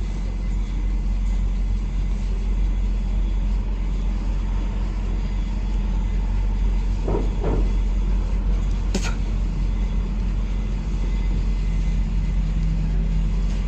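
GMC Tahoe V8 engine idling steadily with a low, even hum, in a truck that has logged a P0300 random-misfire code and came in for a slight knock. A single sharp click sounds about two-thirds of the way through.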